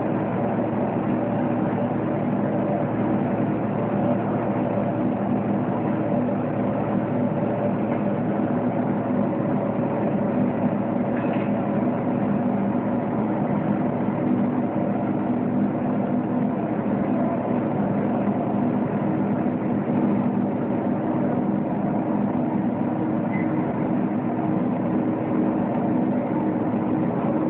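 Two-layer blown film extrusion line running: a steady industrial machine hum with several held low tones and an even noise over it.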